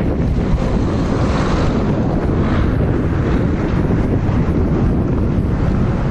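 Wind buffeting the microphone: a loud, steady rumble that covers everything else.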